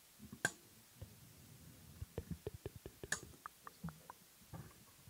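Scattered light clicks and taps picked up by close microphones, with two sharper clicks about half a second in and about three seconds in and a quick run of small clicks in between.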